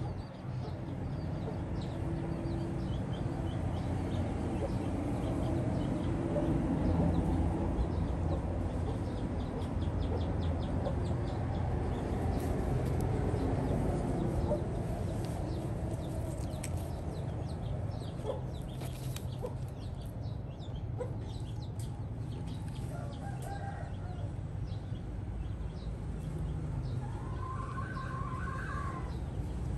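Chickens clucking, with a longer crow-like call near the end, over a steady low background rumble.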